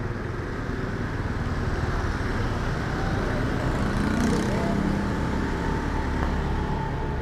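Street traffic: a motor vehicle engine passes close by, growing louder to a peak about four seconds in and then easing, over a steady traffic hum.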